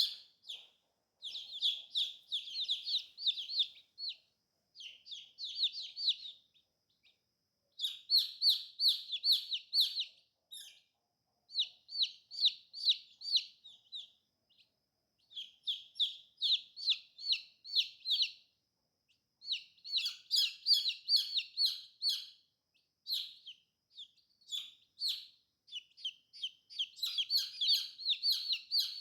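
Baby chicks peeping: runs of rapid high peeps, several a second, broken by short pauses.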